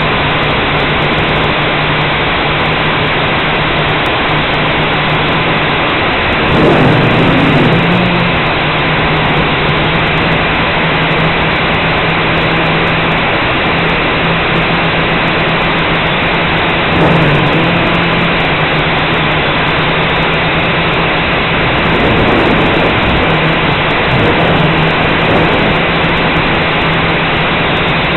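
Blade 180 QX quadcopter's motors and propellers heard from a camera on the craft itself: a steady low hum under a loud rush of propeller wash on the microphone. The hum swoops in pitch and swells several times, about 7 s in, 17 s in and again from 22 to 25 s, as the throttle changes.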